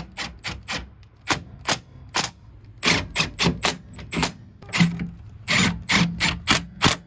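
Cordless impact driver with a socket extension hammering in short trigger bursts as it tightens the swivel seat base's bolts, many quick bursts that come closer together in the second half.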